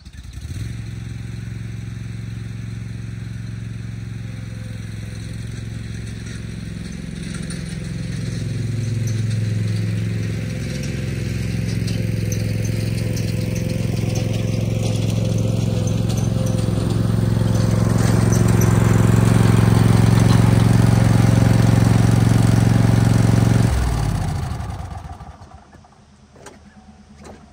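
Troy-Bilt Mustang Z54 zero-turn mower's engine running as the mower drives up towing a lawn cart, growing louder as it comes closer, with a whine that rises in pitch. The engine winds down and stops near the end.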